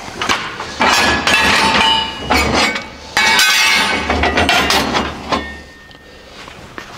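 Steel truck frame rails and clamps clanking against each other as the rails are lined up and clamped: a run of metal knocks with a ringing tone after them, quieter in the last second or so.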